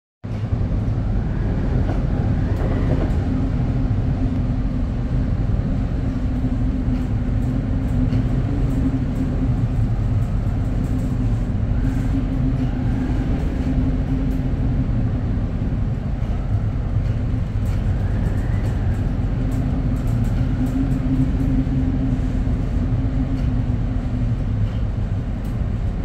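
Gale-force wind over an oil tanker at sea: a loud, steady low rumble with a hum that swells and fades every few seconds, and now and then a faint higher whistle.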